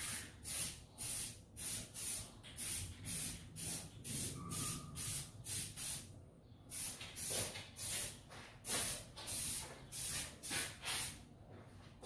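A handheld sprayer misting the resin in short, even bursts of hiss, about two a second, with a brief pause about six seconds in.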